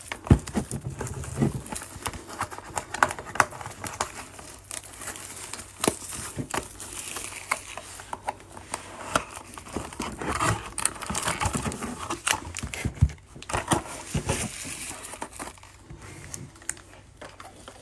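Plastic shrink wrap crinkling and tearing as a sealed trading-card hobby box is unwrapped and opened, with scattered sharp clicks and rustles of the cardboard box.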